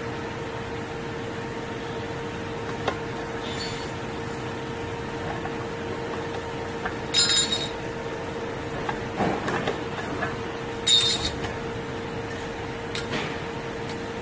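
Hand-lever channel cutter shearing slotted metal channel into 100 mm lengths: two sharp metallic snaps with a ringing clink, about four seconds apart, with lighter clicks and scraping as the channel is slid along between cuts.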